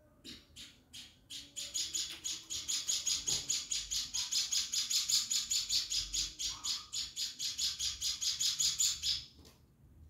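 Hand-fed sparrow chick giving begging calls: a few separate high-pitched chirps, then an unbroken run of about five chirps a second that stops suddenly near the end.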